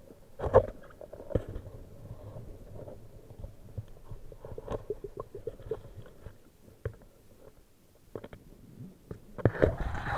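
Muffled underwater sound heard through a camera underwater: low gurgling rumble with scattered clicks and knocks and a run of quick ticks midway. Near the end a louder rushing noise rises.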